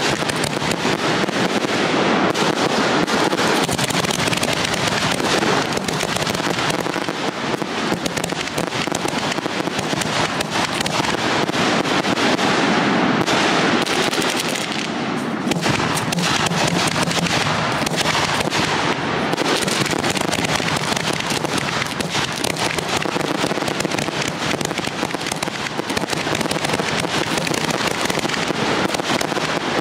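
Aerial fireworks shells bursting in a dense, continuous barrage, the reports and crackle running together with no pause.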